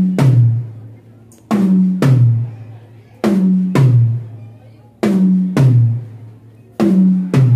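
Miked drum kit toms struck one at a time for a sound check. A higher tom, then a lower one about half a second later, each ringing out and dying away; the pair repeats about every 1.8 seconds, four times.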